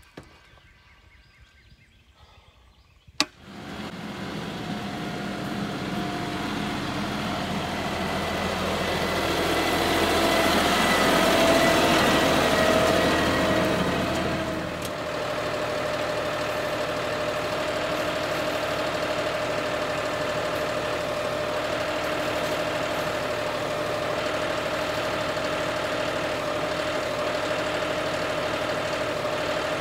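John Deere 5045E tractor's diesel engine running. It comes in abruptly a little over three seconds in, grows louder until about twelve seconds in, drops near fifteen seconds, then runs steadily with a constant whine.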